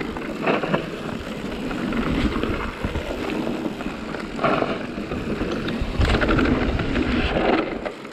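Mountain bike riding fast down a dirt forest trail: tyres rolling over the ground, wind on the microphone, and the bike rattling and knocking over bumps, loudest about four and a half seconds in and from about six to seven and a half seconds in.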